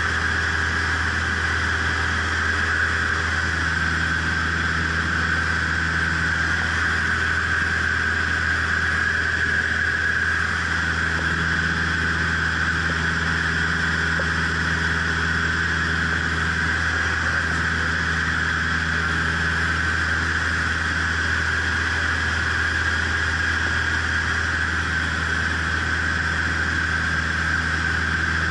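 Cessna 152's 110 hp four-cylinder Lycoming engine and propeller droning steadily in flight, heard from inside the cabin.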